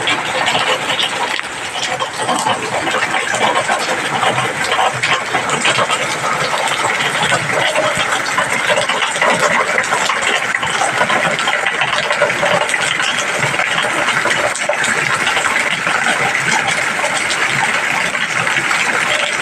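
Rain falling steadily: a dense, even hiss full of small drop ticks.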